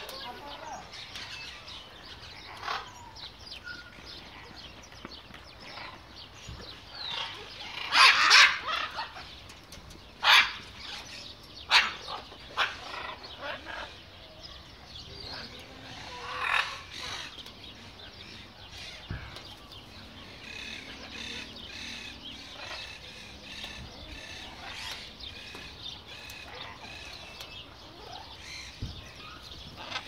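Macaws squawking in harsh bursts, the loudest about eight seconds in, with softer bird calls scattered between.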